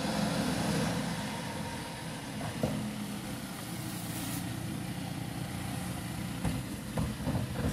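Mercedes-Benz Econic refuse truck's engine running steadily at low revs as the truck creeps along, loudest in the first second. A sharp knock about two and a half seconds in, and a few lighter clicks near the end.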